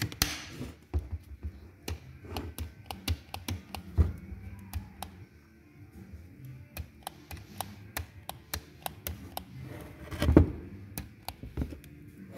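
Irregular clicking of a 12 V cordless electric ratchet wrench's trigger switch being pressed over and over, with no motor running: the tool is not responding. A heavier knock about ten seconds in.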